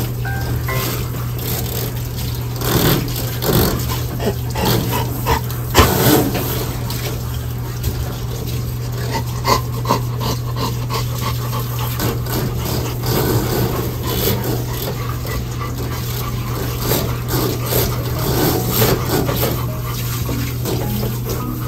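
Labrador retriever being bathed: wet splashing and rubbing of shampoo into its coat, with occasional sounds from the dog, over a steady low hum.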